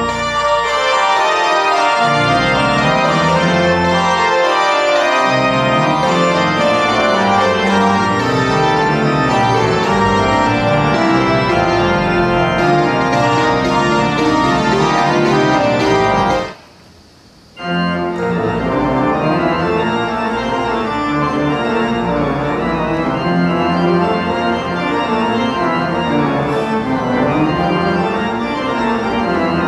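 Organ music playing dense, sustained chords. It stops for about a second just past the halfway point, then resumes.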